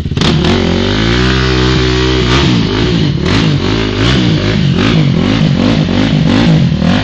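Sport quad's engine revved hard as it churns through deep mud. It is held high for about two seconds, then the throttle is blipped up and down over and over.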